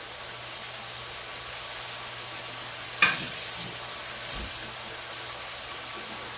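Chicken gizzards sizzling steadily in a hot skillet just after a little water has been added. There is a sharp clack about three seconds in and a brief low thump just after four seconds.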